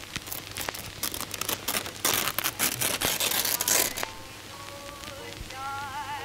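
A paper poster being torn up by hand: a run of crackling rips that grows loudest in its last couple of seconds and then stops. Music with wavering tones comes in near the end.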